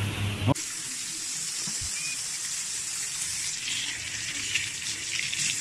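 Tap water running steadily into a sink, starting about half a second in.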